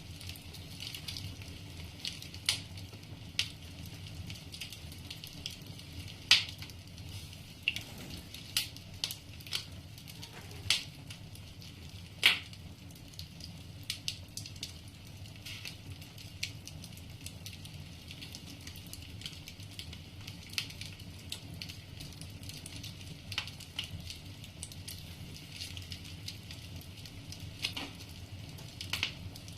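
Wood fire burning in a fireplace: a steady low rush with irregular crackles and occasional sharp pops from the burning logs, the loudest about six and twelve seconds in.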